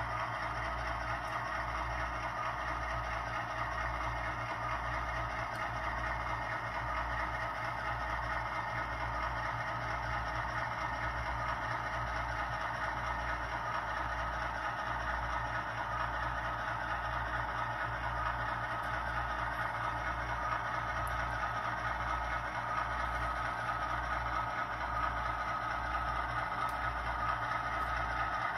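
ESU LokSound decoder in a Walthers HO-scale EMD SW1 model switcher playing the diesel engine sound through the model's small speaker, running steadily as the locomotive moves slowly. There is a regular low pulse about once a second.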